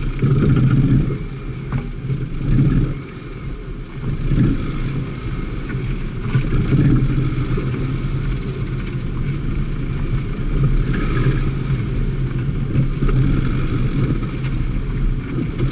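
Car engine revving up and easing off in repeated surges while being driven around tight turns, settling to a steadier pull in the second half.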